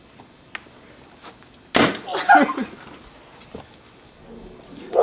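A single sharp bang, the gunshot of a staged shooting, a little under two seconds in, followed at once by a short cry in a male voice.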